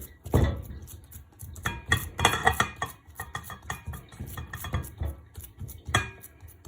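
Kitchen pans and utensils being handled: a run of irregular knocks, clinks and clatters, some ringing briefly.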